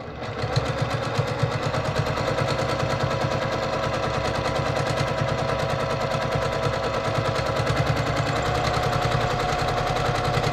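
Brother PQ1500SL straight-stitch sewing machine running at speed, its needle going up and down in a rapid, even rattle while free-motion quilting through a quilt sandwich. The stitching speeds up a little near the end.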